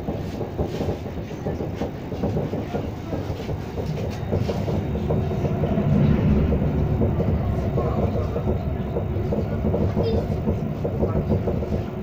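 Interior running noise of a Pesa 19WE electric multiple unit at speed: a steady rumble of wheels on rails with faint clicks, getting louder about halfway through.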